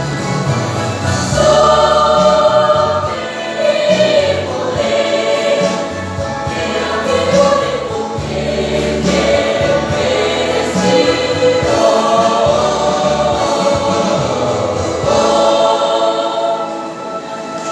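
Choir singing, many voices together in harmony; the phrase fades just before the end.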